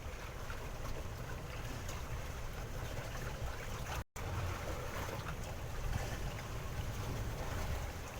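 Steady water and wind noise aboard a small boat at sea, with a low rumble underneath and a few faint knocks. The sound drops out for an instant about four seconds in.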